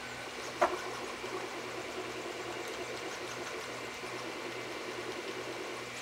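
Miniature 3D printer, a half-scale Printrbot Simple, running a print: its small stepper motors whir and hum steadily as the bed and print head move, with a brief chirp about half a second in.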